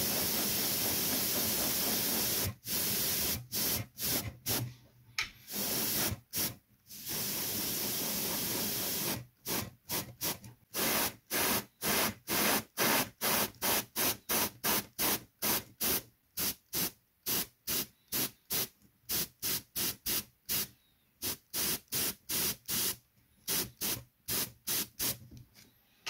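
Infinity CR Plus airbrush spraying paint: a few longer hisses, then a long run of short bursts, about two a second, as the paint is laid on in light little strokes.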